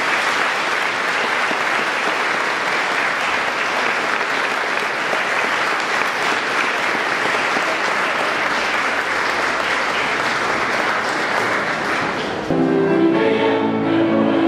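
Audience applauding steadily in a large hall, which stops abruptly about twelve seconds in. A choir singing takes over for the last couple of seconds.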